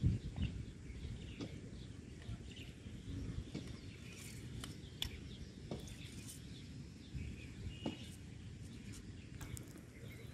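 Outdoor rural ambience: a steady low rumble with scattered small clicks and knocks, and faint bird chirps.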